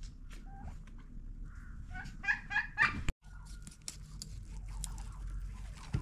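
A chicken clucking, a few quick loud clucks about two seconds in. Then a knife scraping scales off a carp, with scattered scrapes and clicks.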